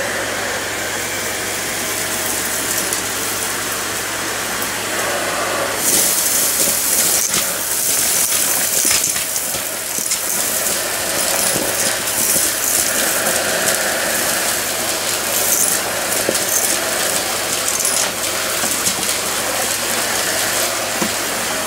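Stick vacuum running steadily on a hardwood floor. From about six seconds in its floor head sucks up a pile of debris, and a louder hiss full of quick small clicks and rattles sets in as the bits are pulled through.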